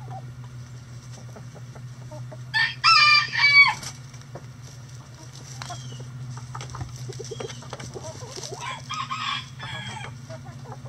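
A rooster crows once, loud, about three seconds in: a short note and then longer ones falling at the end. Hens cluck softly around it, over a steady low hum.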